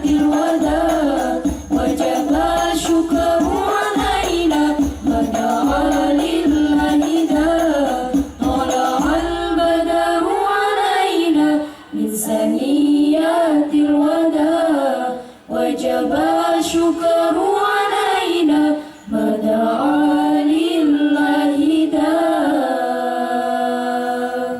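Banjari ensemble singing sholawat together over frame drums, with a low drum beating for about the first ten seconds. The drum then drops out and the voices carry on alone, ending on a long held note that cuts off.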